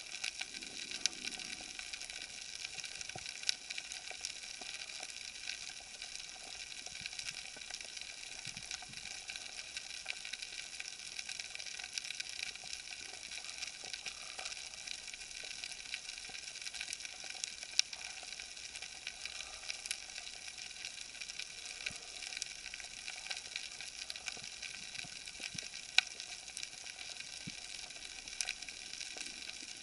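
Underwater crackling of a rocky, weed-covered seabed: a steady fizzing crackle with a sharper click now and then.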